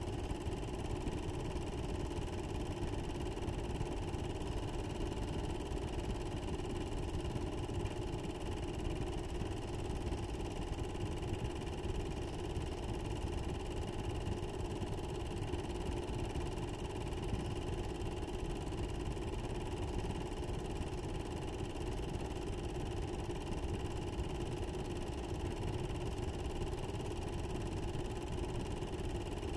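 Steady machine hum and whir with a low rumble, unchanging in pitch or level.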